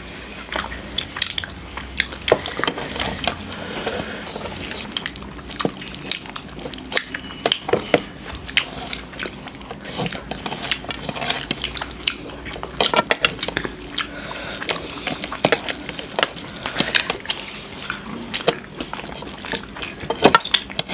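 Eating sounds: many irregular smacks and clicks of mouths chewing soft food, with occasional clinks of dishes and utensils.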